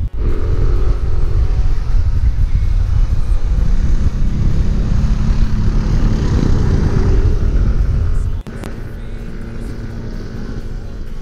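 Yamaha NMAX scooter under way: its single-cylinder engine running under heavy wind rumble on the microphone. About eight and a half seconds in, the sound drops abruptly to a lower, steadier level.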